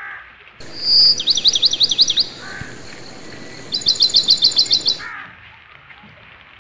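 A songbird singing loudly and high: a held whistle, then a fast run of rising and falling trilled notes, and after a short pause a quick series of about ten sharp notes. A crow caws briefly at the start and again near the end over a steady hiss of rain.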